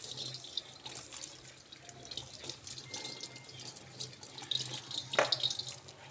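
Tap water running and splashing into a sink, with small clatters and one sharp knock about five seconds in.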